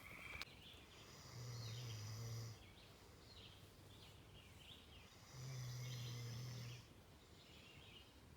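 Faint outdoor ambience with quick high chirps repeating throughout, from birds or insects. Twice a steady low hum, about a second long, comes and goes.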